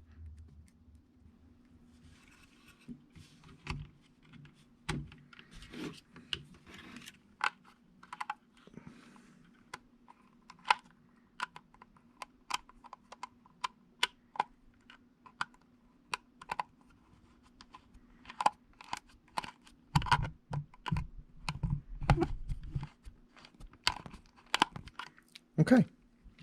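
Irregular small clicks and taps of a precision Torx screwdriver and small plastic drone parts being handled while tiny screws are snugged in, with a few duller knocks about twenty seconds in.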